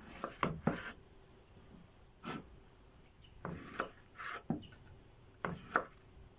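Kitchen knife cutting soft peeled tomatoes on a wooden cutting board: irregular knocks of the blade against the board.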